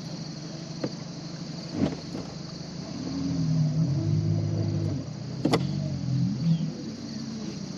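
A small motor hums for about two and a half seconds from about three seconds in, its pitch stepping up and down. A few sharp knocks come before and after it.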